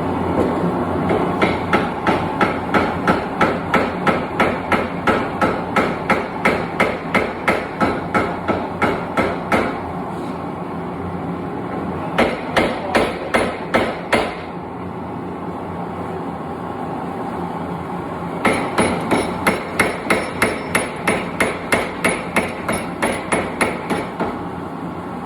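Hand hammer striking hot steel on an anvil in a steady rhythm of about three blows a second, in three runs: a long one of about nine seconds, a short one of about two seconds, and another of about six seconds near the end. A steady roar runs underneath.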